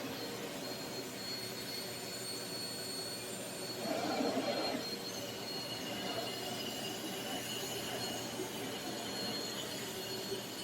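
Aspiron 1600W bagless canister vacuum cleaner running on full power: a steady rushing whine, with a brief louder rush about four seconds in.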